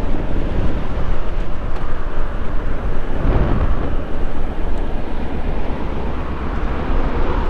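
A 2017 Triumph Street Scrambler 900's parallel-twin engine running at low speed while the bike is ridden, heard as a steady rumble mixed with road and air noise.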